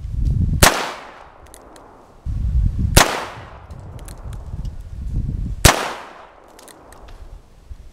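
H&R Model 929 Sidekick .22 LR revolver firing three shots about two and a half seconds apart, with a low rumble between the shots.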